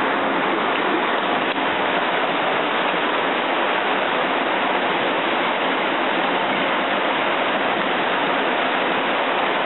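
Tsunami floodwater rushing past in a steady, unbroken roar of moving water.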